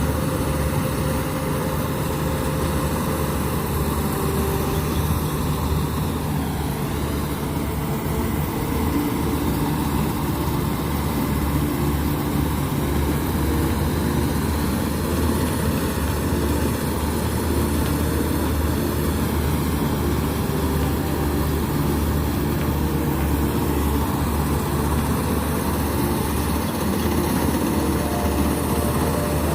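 Engine of a Kubota rice combine harvester running steadily under load, a constant low drone with a little mechanical clatter and no change in speed.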